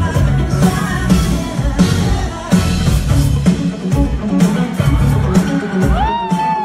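Live band music with drums and electric guitar, heard through a phone recording of a stage show. Near the end a voice slides up into one high note and holds it briefly.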